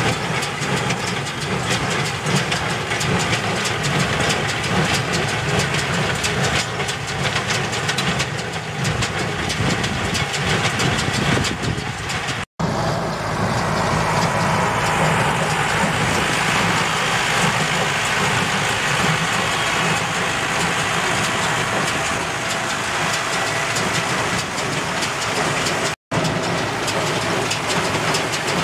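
Tractor engine and tractor-drawn RSA 86 small square baler running steadily as the baler picks up and presses rice straw. The sound drops out for an instant twice, and after the first break a higher hiss joins it.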